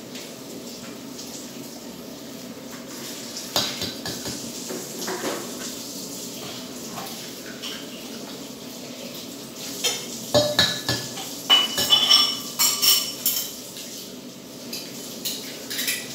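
Eggs being cracked and separated over a mixing bowl: scattered taps and knocks of shell on the bowl, then a denser run of sharp knocks and short ringing clinks about ten to thirteen seconds in, over a steady low hum.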